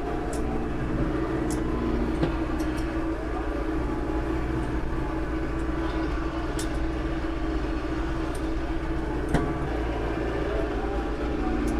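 Branson 5220 tractor's diesel engine running steadily under work, its pitch rising and falling a few times as it is throttled. Two sharp knocks come about two seconds in and near the end.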